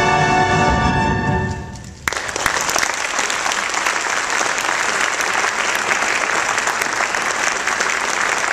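A brass band's final held chord dies away over the first two seconds, then audience applause breaks out suddenly and carries on steadily.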